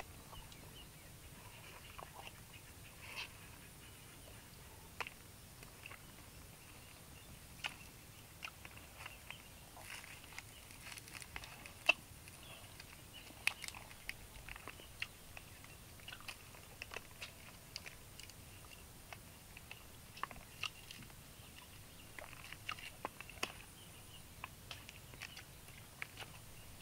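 Eating grilled snails: irregular small clicks and crunches as the shells are picked over and handled on a leaf, with chewing.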